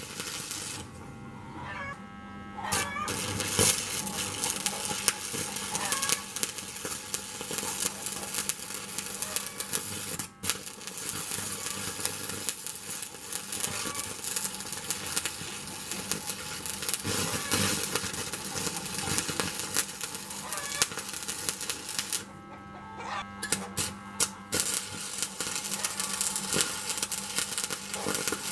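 Stick welding arc crackling steadily. It stops twice for a second or two, near the start and about three quarters of the way through, leaving a low hum.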